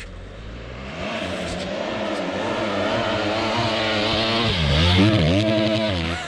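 Motocross bike engine approaching and growing louder, the revs dropping and climbing again twice near the end as the rider works the throttle.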